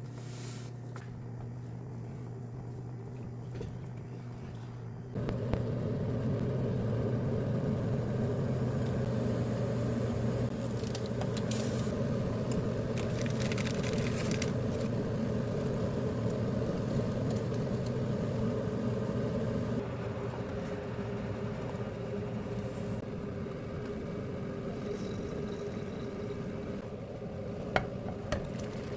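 A steady hum from a small motor or fan, which gets louder about five seconds in and eases slightly later on, with a couple of light clicks near the end.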